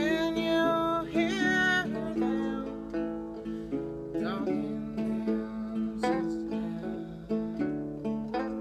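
Open-back banjo and acoustic guitar playing an old-time folk tune together. A harmonica carries a bright, held melody line over the picking in the first two seconds, with shorter phrases later.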